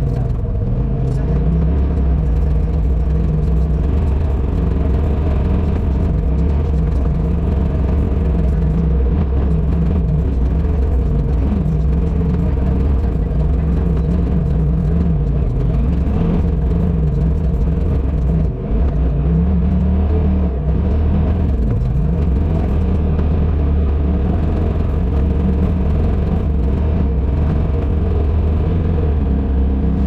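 Polaris Pro XP side-by-side's engine running steadily as it drives along a trail, with a short dip in level about two-thirds of the way through.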